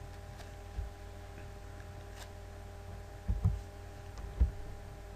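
Steady electrical hum from the recording setup with a few muffled thumps and faint clicks of a computer mouse and keyboard being used, most of the thumps in the second half.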